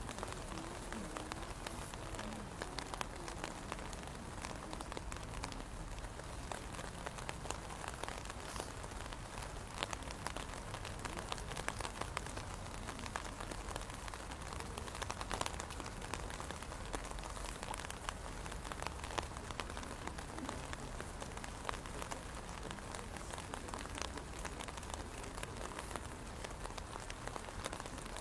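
Steady rain falling, with many separate drops ticking sharply on a nearby umbrella canopy.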